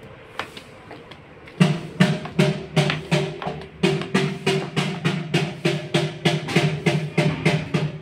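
Background music with a fast, even drum beat, about four strikes a second, starting about one and a half seconds in.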